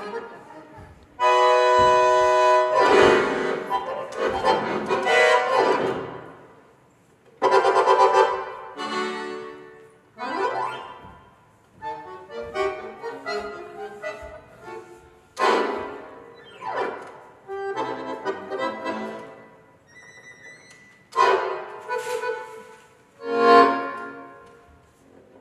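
Music, with a squeezebox-like sound, played in short phrases broken by brief pauses.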